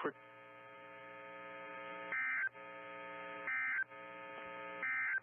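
NOAA Weather Radio emergency alert (EAS/SAME) digital data bursts: three short, high, buzzy bursts about a second and a half apart over a steady electrical hum. Short triple bursts like these are the end-of-message code that closes a broadcast warning.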